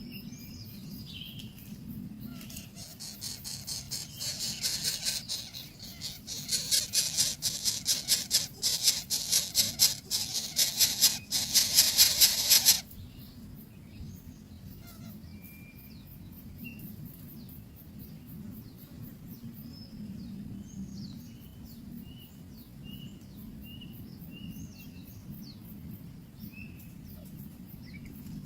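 A loud, rapidly pulsing hiss runs for about ten seconds and cuts off abruptly. After it come scattered short, high bird chirps.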